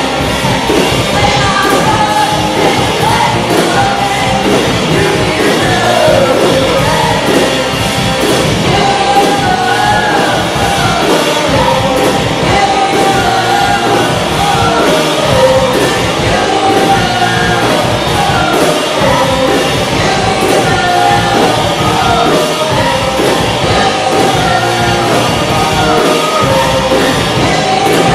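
Live rock band playing: a female lead singer sings over electric guitars, bass guitar and a drum kit, loud and continuous.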